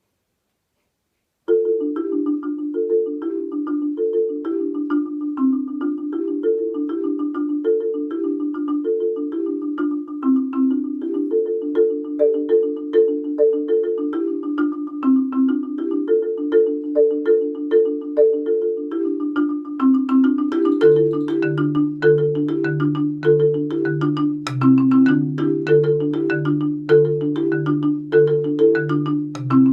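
Solo marimba played with four mallets: after a brief silence, a fast, even run of notes in the middle register, and about twenty seconds in a repeating low bass line joins underneath.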